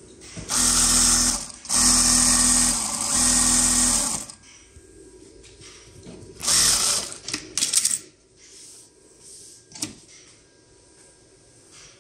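Zoyer ZY2290-D4 computer-controlled zigzag industrial sewing machine stitching at high speed in short runs: about a second, then about two and a half seconds, and a shorter run near the middle. A few sharp clicks follow.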